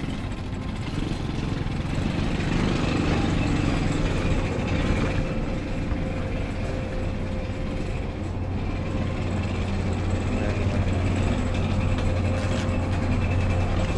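Large engine running steadily: a low hum with a faint steady whine above it.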